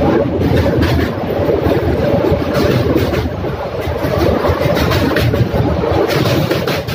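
Express train running at speed, heard from an open carriage doorway: a steady rumble with the rapid clatter of wheels over the rails.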